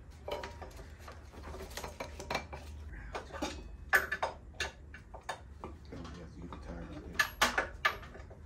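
Metal parts and tools clinking and clicking as a motorcycle's rear wheel is handled: scattered light clicks, with a sharper clink about four seconds in and a quick run of ringing metallic clinks near the end.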